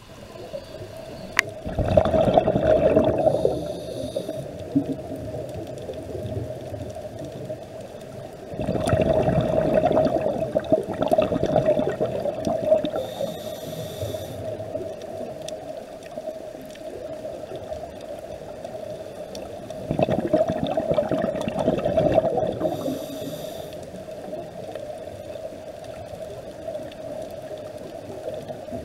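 Underwater sound of a scuba diver breathing: three spells of bubbling gurgle, a few seconds each, from exhaled breath, over a steady low hum. Short hisses come between the spells.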